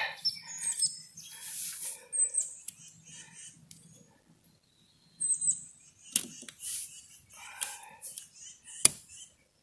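Small birds chirping, short high notes that slide downward, a few times, over the rustle of electric fence polywire being pulled tight and threaded through a metal fence post. A single sharp click about nine seconds in.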